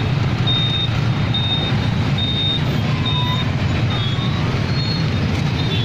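Steady motor-vehicle engine and road rumble, with a short high electronic beep repeating about once a second.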